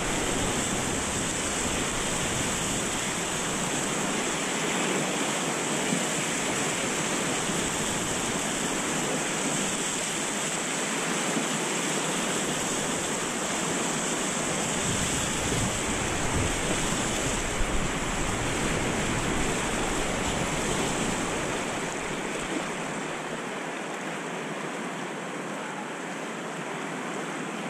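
Steady rush of whitewater rapids churning around a kayak, easing slightly near the end.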